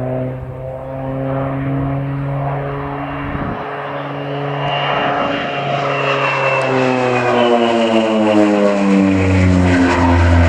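North American OV-10B Bronco's twin Garrett T76 turboprop engines and propellers in flight, a steady drone that drops in pitch from about halfway through and grows louder toward the end.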